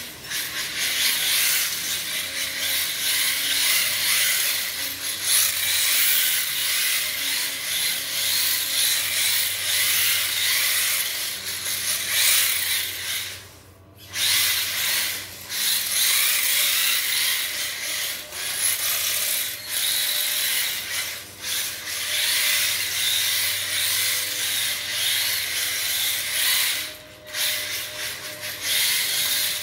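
HSP 1:10 4WD brushed electric drift car driving on a tile floor: its brushed motor and drivetrain run on and off with the throttle while the hard drift tyres slide across the tile. The sound drops out briefly about 14 seconds in and again near the end as the throttle is let off.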